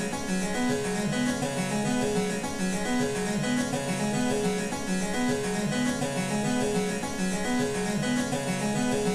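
Background music with a steady repeating bass pattern.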